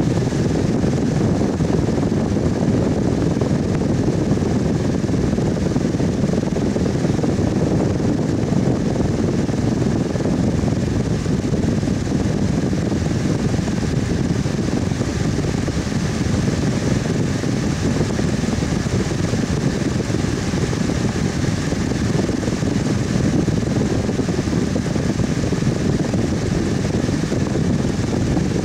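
Electric fan running steadily: an even low whoosh of moving air with a faint steady hum, unchanging throughout.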